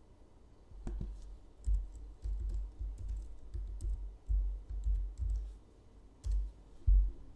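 Typing on a computer keyboard: a run of irregular keystrokes with short pauses, each a dull thud with a light click, as a password is keyed into a login field.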